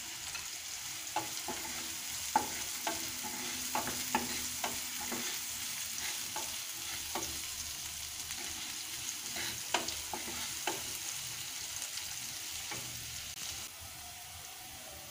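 Sliced onions and green chillies sizzling in hot soybean oil in a non-stick frying pan, with a wooden spatula stirring and tapping against the pan now and then. The onions are being fried until light brown.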